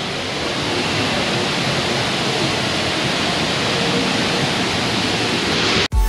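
Large waterfall pouring, a steady rush of water noise that cuts off suddenly near the end.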